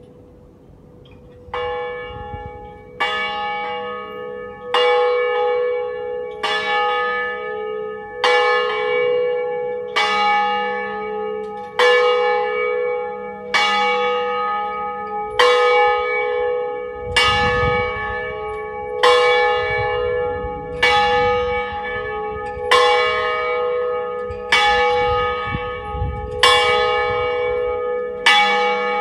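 A single church bell swung full circle in the Ambrosian system, rung a distesa for noon. The clapper strikes once about every two seconds in an even rhythm, each stroke ringing on into the next. The first stroke, a second and a half in, is weaker than those after it.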